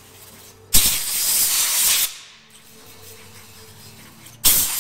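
Compressed-air paint spray canister hissing as it sprays paint, in two bursts: one of about a second and a half starting near the start, and a second beginning near the end.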